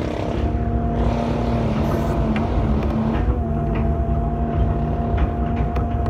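Excavator's diesel engine running steadily, heard from the cab: a constant low rumble with a steady whine held over it.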